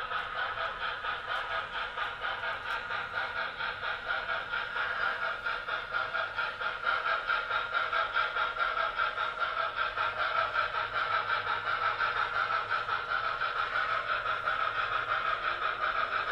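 Model N&W Y6b Mallet steam locomotive and its ore hoppers running, a rapid, even rhythmic pulsing like steam exhaust chuffing over the rolling of the train. It grows a little louder about halfway through as the train draws nearer.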